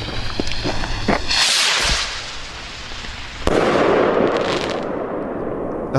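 A firework rocket from a Phantom and Ghost rocket set lifts off with a rushing hiss about a second in. About two seconds later it bursts suddenly into a mix of glittering pollen-type stars and crackle, with sharp crackling near the end.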